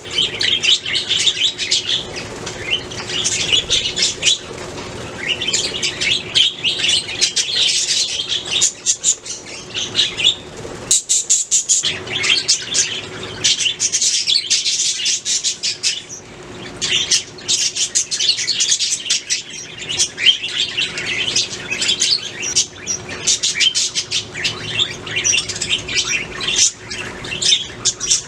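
Budgerigars chirping and warbling together: a dense, unbroken run of short high chirps, with a brief lull about eleven seconds in.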